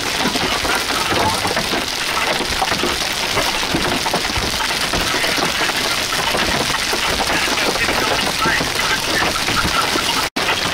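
Heavy rain mixed with hail pelting down, a dense, steady hiss of countless small impacts. It breaks off for a moment near the end.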